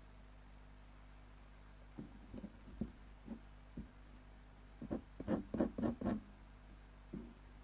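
Ink pen nib scratching on paper in short hatching strokes: a few scattered strokes from about two seconds in, then a quick run of about five louder strokes, and one more near the end.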